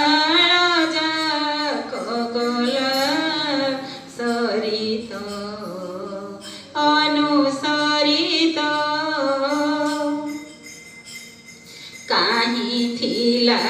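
Odia devotional song: a woman's voice singing long, ornamented notes over music. The voice falls away briefly near the end, then comes back strongly.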